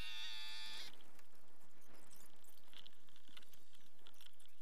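Footsteps on wet ground and light knocks as a plastic sit-on-top fishing kayak is taken hold of. A high buzz with many overtones cuts off about a second in.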